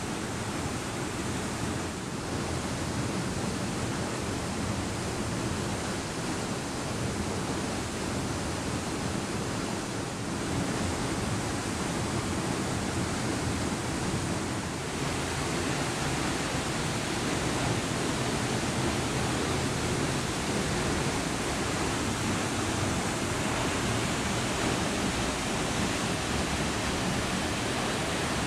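Steady rushing roar of a waterfall and the whitewater creek below it, falling water only.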